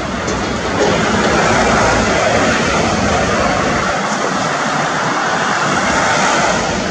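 Road traffic driving past close by: tyre and engine noise as a steady rush, with a large vehicle passing right in front of the microphone.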